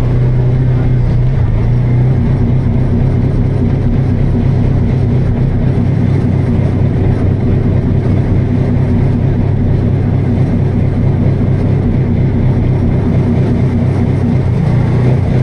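Kawasaki Teryx4 UTV's V-twin engine running steadily while the machine is driven along at an even speed.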